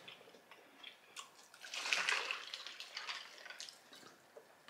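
Juice poured from a plastic bottle into a drinking glass, a splashing pour lasting about two seconds.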